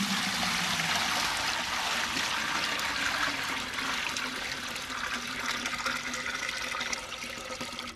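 Water pouring in a steady stream from a large plastic water cooler into a big metal cooking pot (degchi), splashing onto the pot's bottom.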